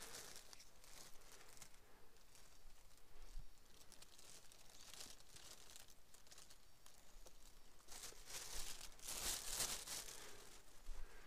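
Thin plastic bag crinkling while a freshly cut mushroom is handled over it and put in, with a louder stretch of crinkling about eight to ten seconds in.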